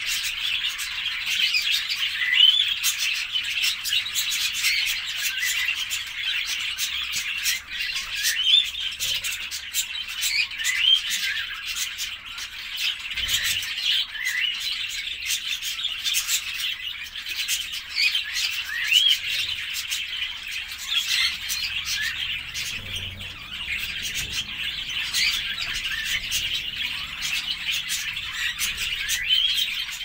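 A large flock of budgerigars chattering and warbling without a break, many short rising chirps overlapping.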